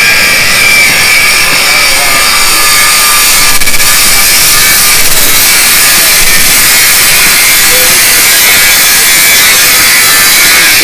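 A belt grinder grinding a steel knife blade: a loud, steady hiss with a high whine, which cuts off suddenly at the end.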